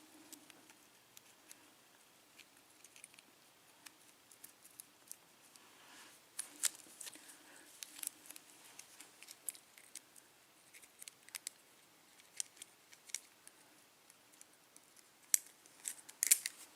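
Faint, irregular small metallic clicks and scrapes of a tool working at the retaining clip on the plug of a Wilka euro cylinder lock, with a denser cluster of louder clicks near the end.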